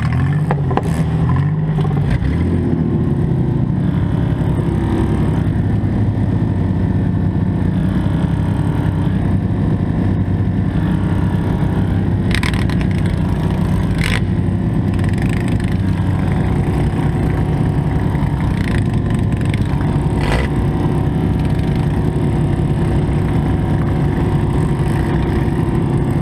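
Four-cylinder demolition derby car engine running hard and steady, with a few short sharp knocks about halfway through.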